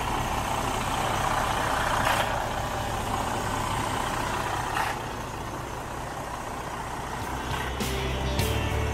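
Detroit DD15 six-cylinder diesel of a Freightliner heavy truck idling steadily, with a couple of short hisses.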